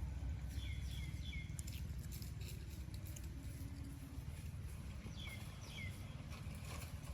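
Short high, falling chirps, three in quick succession about a second in and two more a little past five seconds, over a steady low rumble and scattered light clicks.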